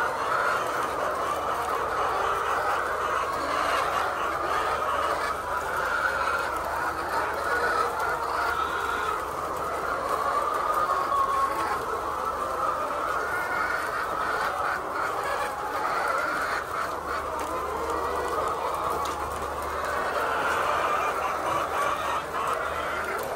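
Flock of layer chickens, many birds calling at once in a dense, steady chorus.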